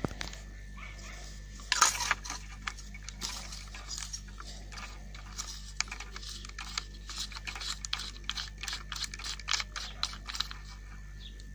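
Small clicks and rattles of metal and plastic parts from an old Soviet spinning reel being handled and worked by hand, its spool and top knob turned by the fingers. A louder cluster of clicks comes about two seconds in.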